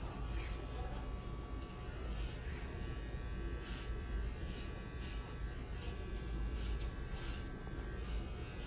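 Electric hair clippers buzzing steadily during a haircut, with short crisp bursts every second or so.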